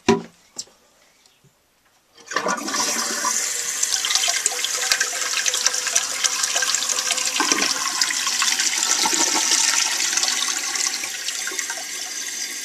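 Toilet flushing, with its newly fitted fill valve and flapper: a couple of short clicks, then about two seconds in water rushes loudly and steadily, easing slightly near the end.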